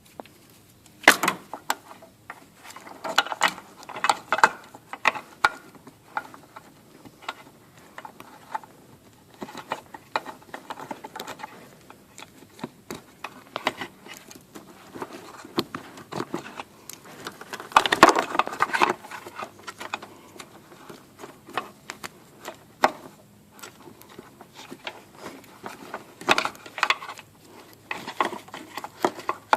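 Hand work on a car: irregular clicks, knocks and rattles of tools and parts being handled, with a louder spell of rattling about eighteen seconds in.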